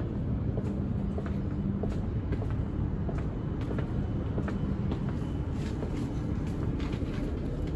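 Steady low rumble and hum inside an E5 series Shinkansen passenger car, with scattered light clicks and knocks.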